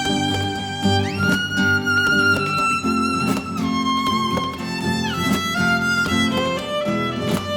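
Background music: a violin plays a melody of held notes with slides between them, over plucked guitar accompaniment.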